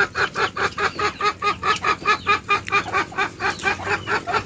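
Chickens clucking in a fast, steady string of short calls, about six or seven a second.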